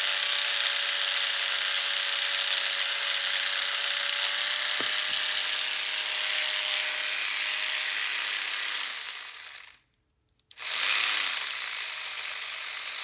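Old Sears Craftsman rotary tool driving a Dremel jig saw attachment fitted with a file, running with a steady high buzz. About nine seconds in it winds down and stops, then after a short gap starts up again.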